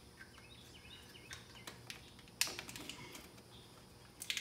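Faint clicks and handling noise from the transfer case encoder motor's electrical connector being worked and pushed together, with a sharper click about two and a half seconds in and a few more clicks near the end.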